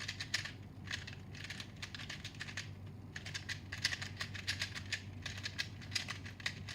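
Shizheng 2x2 speedcube being turned quickly by hand: rapid plastic clicking in bursts, with brief pauses between runs of turns.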